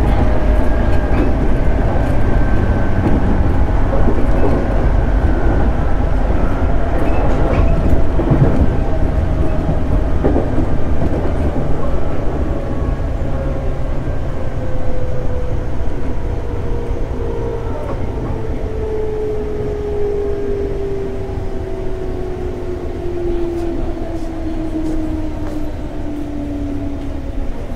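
Running noise inside a JR 211 series 5000-subseries electric train: a steady rumble of wheels on rail with a few knocks over rail joints, and a motor whine that falls steadily in pitch as the train slows.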